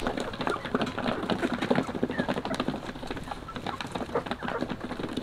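Chickens and ducks feeding on grain scattered over hard-packed dirt: a dense, uneven patter of quick pecks and taps.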